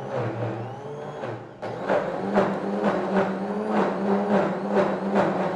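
OmniBlend high-power blender motor running, churning sunflower seeds, walnuts and water into a thick nut milk. About a second and a half in, the motor's hum jumps higher and louder as it speeds up. It then runs with a regular pulsing of two or three beats a second.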